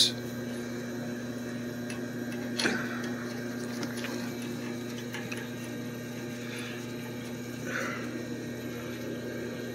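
Steady, even machinery hum with a low droning pitch. A single light metallic click comes about two and a half seconds in as a bolt is started by hand into the filter drier's cover flange.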